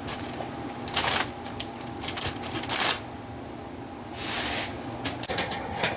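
Kitchen handling sounds: irregular light clicks and taps with a few short rustles, as food and utensils are moved about on the counter.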